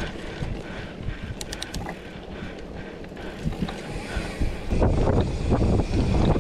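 Mountain bike riding over a dirt trail: tyres rolling and rattling on the ground, with wind buffeting the microphone. The rumble gets clearly louder and rougher about three-quarters of the way through.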